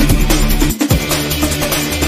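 Electronic background music with a steady beat, with a brief drop-out of the bass about three-quarters of a second in.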